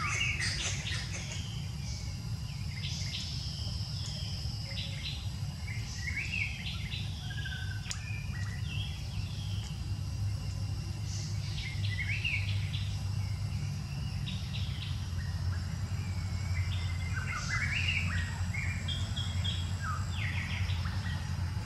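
Wild birds chirping and calling in short, scattered phrases, with quick rising and falling notes, over a steady low rumble that grows stronger about halfway through.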